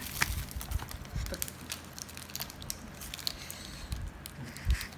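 Scattered handling noises: soft knocks and light clicks with faint rustling of a plastic snack wrapper, the loudest knock near the end.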